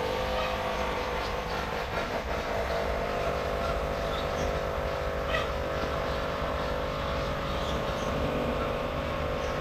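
A machine running steadily: an even droning hum of several steady tones over a low rumble.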